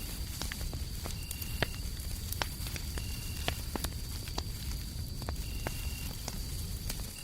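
Fireplace crackling, with scattered sharp pops over a low steady rumbling hiss. Crickets chirp with it: one steady high trill, and a shorter, lower chirp about half a second long repeating every second and a half or so.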